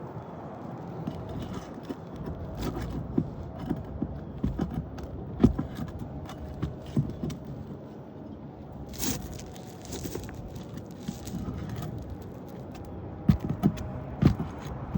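Metal snake tool working under asphalt roof shingles, prying the sealed tabs loose: scattered sharp clicks, knocks and scrapes of metal on shingle, with a brief scraping rush about nine seconds in and a quick run of knocks near the end.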